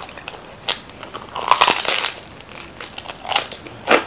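Close-miked crunching of a crisp Chicago deep-dish pizza crust being bitten and chewed, in a few separate crunches with the loudest cluster about halfway through.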